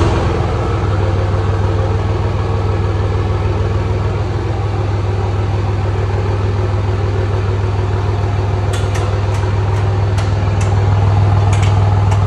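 A motor running steadily with a strong low hum, started just before. A few faint, sharp clicks come about nine seconds in and again near the end.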